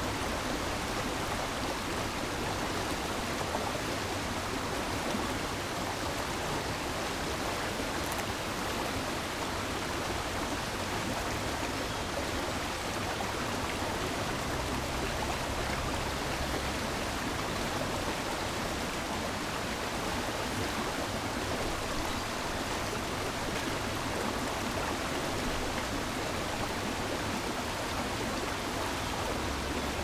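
Fast-flowing stream running over rocks in shallow rapids, making a steady, even rush of water.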